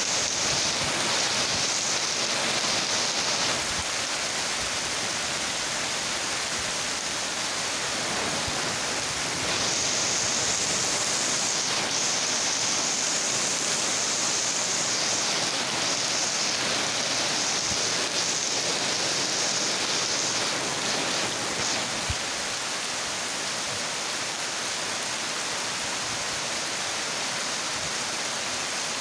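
Heavy rain falling steadily on corrugated metal roofs and trees, a dense even hiss that drops a little in level about twenty-two seconds in.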